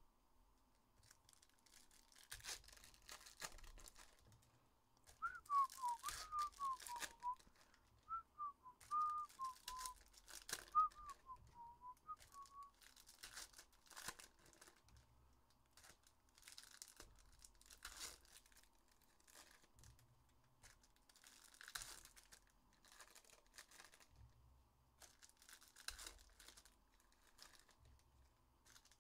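Upper Deck hockey card pack wrappers crinkling and tearing as they are opened, in repeated bursts of rustling. From about five seconds in, for some seven seconds, someone whistles a short wavering tune over it.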